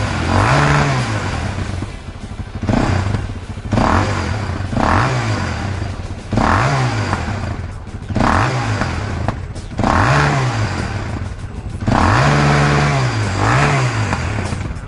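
KTM 640 single-cylinder four-stroke engine breathing through a stainless Krieger slip-on end silencer, revved with repeated short throttle blips, roughly one a second. Each rev rises and falls quickly, and one near the end is held a little longer.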